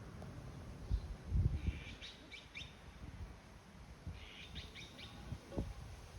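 Eastern spot-billed duck ducklings peeping: two quick series of short, high chirps, about two seconds in and again about four seconds in. A few low bumps sound underneath, the loudest about a second in.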